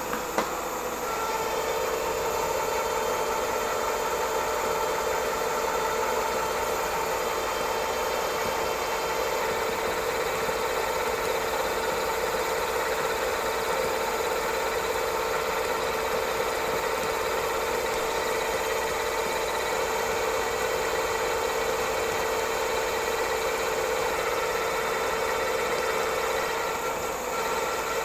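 Bridgeport vertical milling machine running with an end mill cutting a keyway in a 1045 steel shaft: a steady mechanical hum with a sharp click about a third of a second in. The hum dies down near the end.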